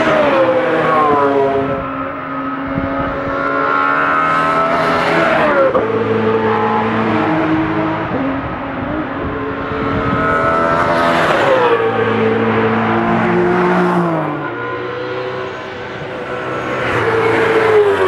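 Racing cars at full throttle passing one after another, among them a BMW Z4 GT3 with its V8. Four times a loud engine note rises and then drops in pitch as a car goes by, about every five or six seconds.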